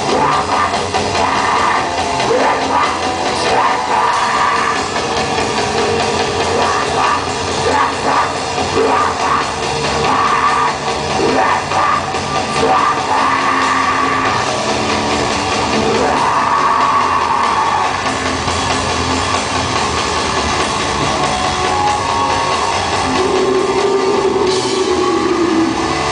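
Heavy rock band playing live and loud, drum kit driving under amplified instruments.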